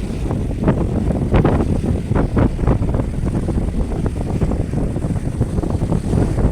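Wind buffeting the microphone: a continuous low rumble with irregular gusty surges.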